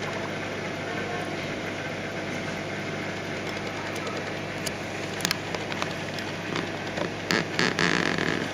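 Steady mechanical hum and water rush from a Red Sea Max 130D reef aquarium's built-in pumps. A few sharp clicks halfway through and a short crackly burst near the end.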